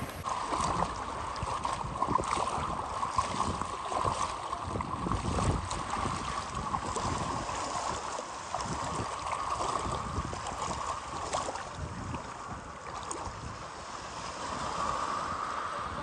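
Shallow sea water sloshing and lapping, with many small irregular splashes and wind on the microphone giving a steady hiss underneath.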